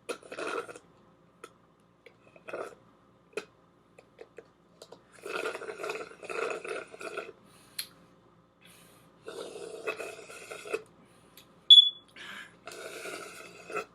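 Slurping the last drops from an almost-empty cup through a straw, in several long gurgling pulls, with one short, sharp, high squeak just before the last pull.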